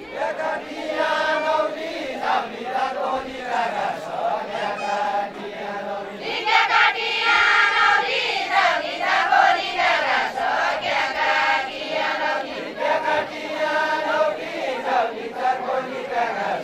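Deuda folk song of far-western Nepal sung in unison by a line of women dancers: short sung phrases repeat over and over, louder and brighter through the middle stretch.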